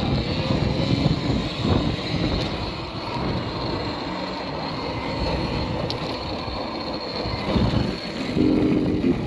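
Motorbike on the move: wind rumble on the microphone and road noise, with a faint steady high whine. A few short pitched notes come in near the end.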